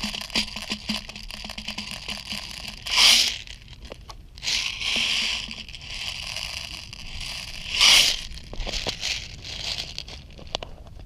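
Rustling and crunching close to the microphone, with two louder swishes about three and eight seconds in.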